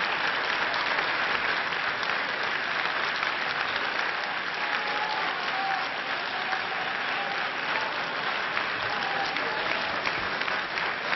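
Sustained applause from a large seated audience, many hands clapping at once without a break.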